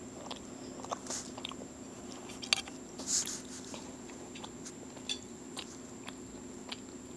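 Close-up chewing and wet mouth clicks of someone eating, with a sharp click about two and a half seconds in and a couple of short rustles of the phone being handled. A faint steady hum and a thin high whine run underneath.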